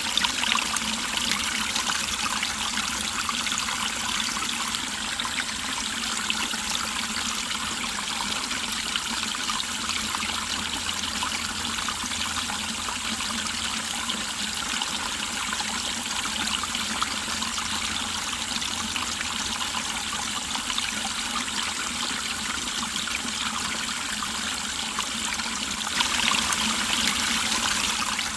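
Mountain stream flowing over rocks, a steady trickling and babbling of water that swells a little louder near the end.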